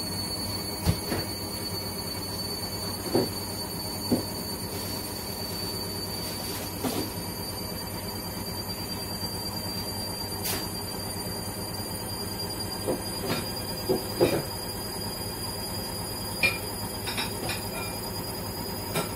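A steady mechanical hum with a thin, constant high whine, broken by a dozen or so scattered light knocks and clicks.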